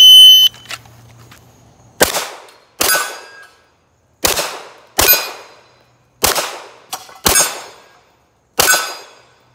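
Electronic shot timer's start beep, a steady high tone about half a second long, then seven handgun shots over the next seven seconds, mostly in quick pairs, each sharp crack trailing off briefly. The timer records each shot as a split.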